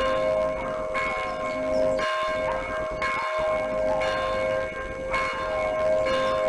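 Church tower bell tolling, struck about once a second, each stroke's tone ringing on between strokes.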